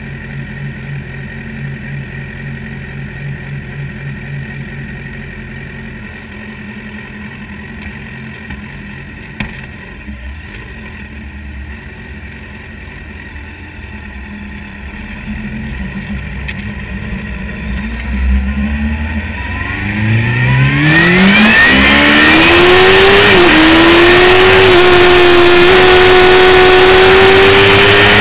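Sportbike engines idling low, then the camera bike's engine, a Suzuki GSX-R750, revs up and accelerates away, its pitch climbing through a couple of gear changes before holding a steady high note. Loud wind rush over the microphone joins in as speed builds.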